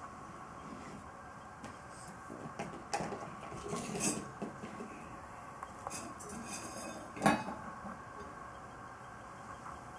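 Small stainless steel pot handled by a baby on a wooden floor: metal clinks and scrapes with one loud clank about seven seconds in.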